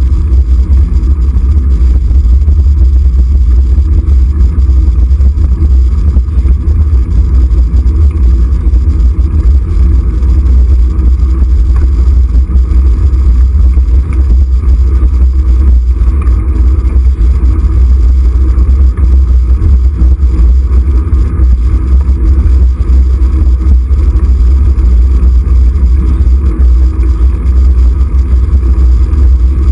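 Steady, very loud low rumble of wind buffeting the camera microphone while riding along a road, with road and traffic noise underneath.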